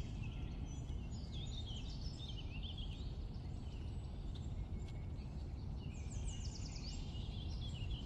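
Small birds chirping and twittering over a steady low background noise, with a run of quick falling chirps about six seconds in.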